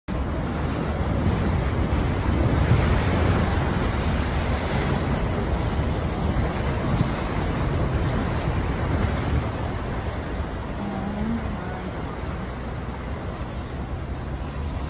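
Steady rush of churning floodwater, with heavy wind buffeting the microphone.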